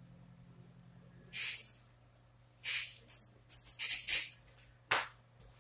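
The last low chord of a digital piano hangs and stops about a second and a half in. After it come several short hissy rustles close to the microphone, the loudest near the end, as the player moves toward the recording device.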